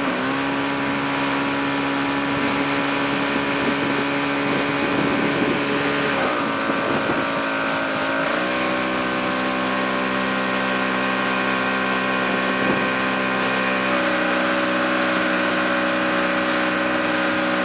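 Motorboat engine running steadily while towing at speed; its note wavers between about six and eight seconds in as the throttle changes, then settles steady again.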